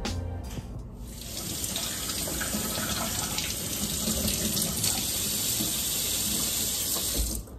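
Kitchen faucet running into a stainless steel sink, with fruit being rinsed under the stream. The water starts about a second in and stops shortly before the end.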